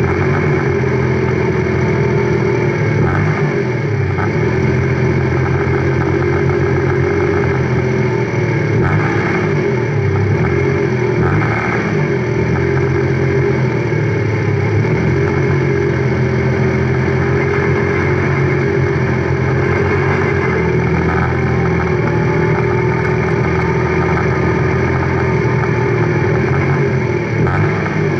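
Single-seater race car engine running at low revs while the car creeps along at walking pace, picked up by the onboard camera; steady, with small rises and falls in pitch and no hard revving.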